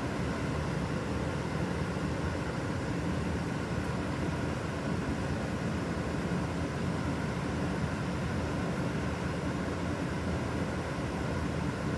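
Okaden city bus No. 572 under way: a steady engine hum with road noise, heard from inside the cabin, with no marked change in speed.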